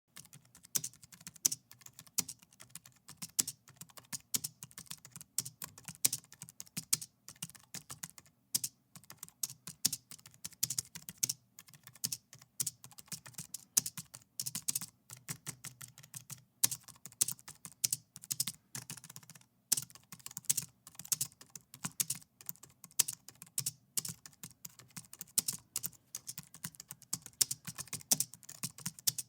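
Continuous typing on an Apple keyboard: a quick, irregular run of light key clicks, with a couple of brief pauses.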